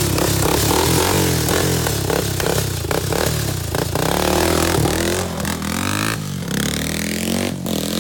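Honda 400EX ATV's single-cylinder four-stroke engine, its top end freshly rebuilt, running loud and revving, the pitch rising and falling with the throttle; it eases off somewhat near the end.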